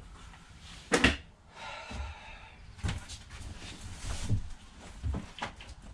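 Small items being handled and set down: a sharp knock about a second in, a short rustle, then a few softer knocks.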